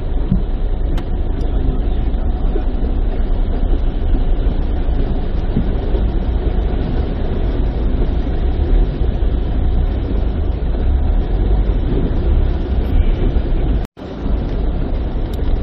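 Steady, loud rumbling noise, heaviest in the deep bass, with no distinct events in it. It drops out sharply for an instant about fourteen seconds in.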